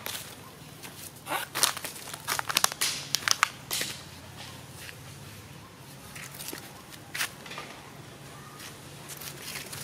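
Dry leaves and twigs crackling and snapping: a quick cluster of sharp crackles between about one and four seconds in, then one more snap about seven seconds in.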